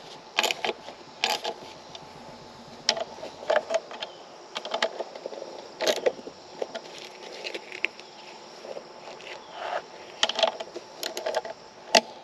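A hand wrench clicks and clinks in short, irregular bursts as bolts are tightened through a mower seat back, with loose metal parts rattling.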